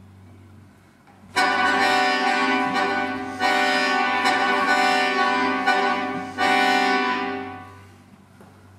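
Accordion playing loud sustained chords: three sudden entries, the first about a second and a half in, each held for two to three seconds, the last fading away near the end.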